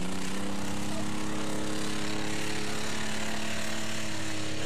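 Truck engine running at steady high revs, its pitch holding nearly level.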